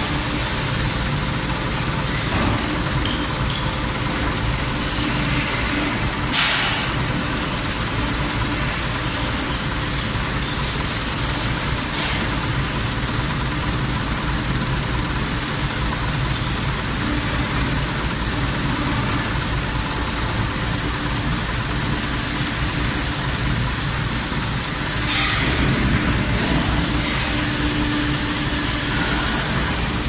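Gas-fired tilting crucible aluminum melting furnace running as it slowly tilts on its hydraulic cylinders: a loud, steady industrial noise with a constant hum. A brief knock about six seconds in.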